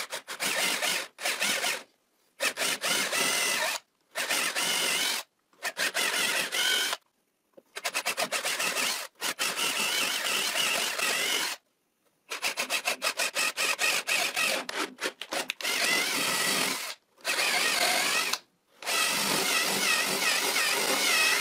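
Cordless drill boring with a spiral wood bit into a wooden workbench leg, roughing out a through mortise. The motor's whine wavers with the load and runs in short bursts that stop and start, some of them a quick stutter of trigger pulses.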